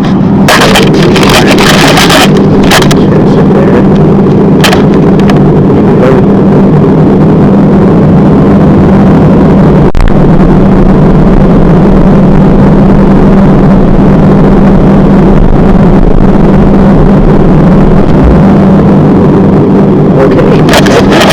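Freezer running, heard from inside the closed compartment: a loud, steady hum with airflow noise from the fan and compressor. A few short rustles come in the first few seconds, and there is a single click about ten seconds in.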